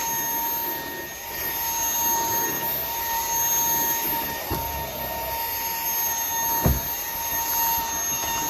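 Wyze cordless stick vacuum running on carpet: a steady motor whine with high tones over the rush of air as the floor head is pushed along, its suction strong enough that the head sticks to the carpet. Two dull knocks come past the middle.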